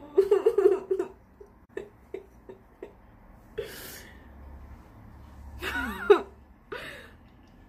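A young woman giggling for about the first second, then a breathy exhale and, about six seconds in, a high voiced squeal that slides up and down.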